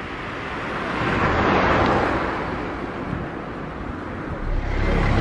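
A car driving past on an asphalt road, its tyre and engine noise swelling to a peak about one and a half seconds in and fading as it moves away. A low engine rumble starts near the end.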